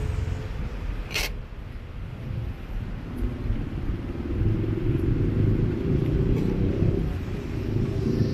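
Street traffic: a low engine rumble of passing vehicles that grows louder about three seconds in, with one sharp click about a second in.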